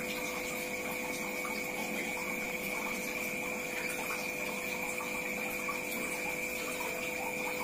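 A steady background hum with a few constant tones over an even hiss, unchanging throughout.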